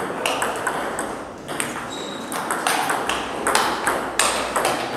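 Table tennis ball clicking off bats and the table in a rally, one bat faced with Sauer & Tröger Hass 2.1 mm short-pimple rubber. Quick sharp hits, about two to three a second, with a brief lull about a second and a half in.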